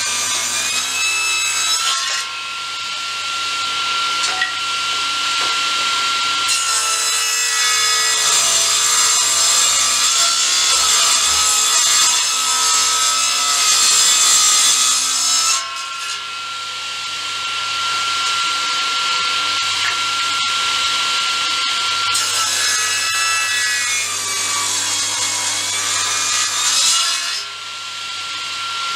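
Table saw running and ripping strips of scrap wood in three passes. A steady whine comes from the blade spinning free between cuts, and each cut is louder and noisier: one at the start, a long one of about nine seconds in the middle, and a shorter one near the end.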